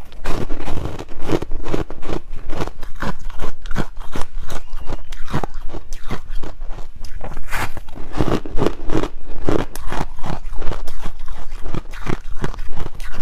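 Ice being bitten and chewed close to the microphone: a rapid, continuous run of crackling crunches.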